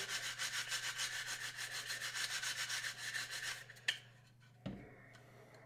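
Bristle magazine brush scrubbed rapidly back and forth inside an empty polymer Amend2 AICS rifle magazine body, in quick even strokes that stop a little under four seconds in. A light click and a soft knock follow as things are set down.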